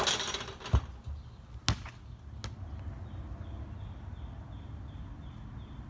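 A basketball swishes through the net, then bounces three times on the concrete driveway. The first bounce is the loudest, and the bounces come closer together.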